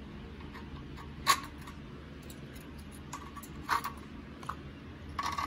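Automotive relays being set down and fitted onto a bare metal mounting plate: a few sharp plastic-on-metal clicks and taps, the loudest about a second in, over a low steady background hum.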